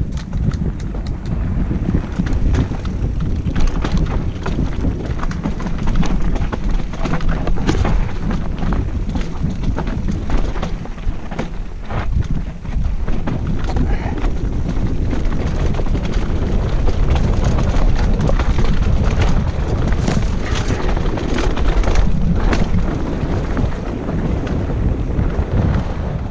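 Wind buffeting an action camera's microphone during a mountain-bike ride down a rocky trail, a loud low rumble with many sharp clicks and rattles from the bike going over stones.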